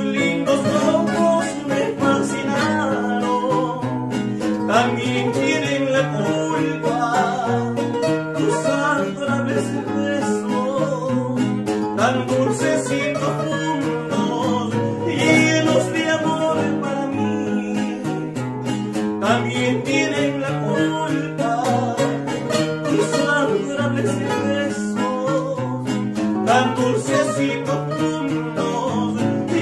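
Two acoustic guitars playing an Ecuadorian pasillo, with a man singing.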